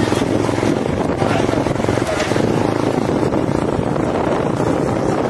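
A motor vehicle's engine running steadily, with wind buffeting the microphone.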